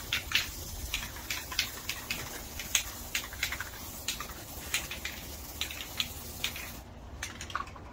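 Aerosol can of black spray paint sputtering as it runs low, a quick irregular string of spits and clicks over a faint spray hiss. The hiss cuts off near the end.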